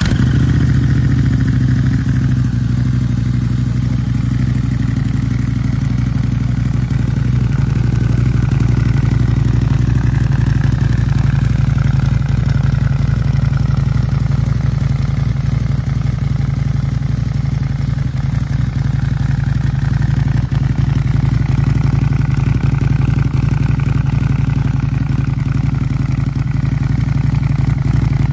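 Custom Harley-Davidson V-Rod Muscle's liquid-cooled V-twin idling steadily through an Akrapovič exhaust, freshly started.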